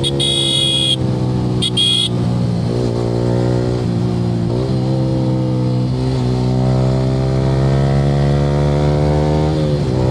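Yamaha R15 V3's single-cylinder engine through an aftermarket Akrapovic R9 exhaust, pulling hard on the move; the engine note drops and climbs again a few times as it is shifted and revved. Two short high-pitched beeps sound in the first two seconds.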